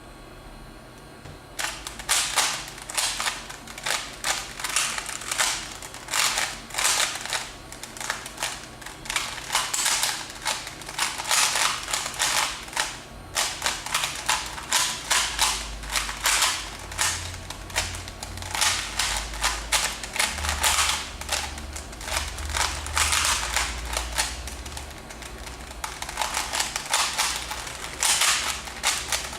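A DIY-kit Rubik's cube with plastic covers and dry lubricant being speed-solved: rapid plastic clacking of layer turns in quick runs with short pauses between them, starting about a second and a half in.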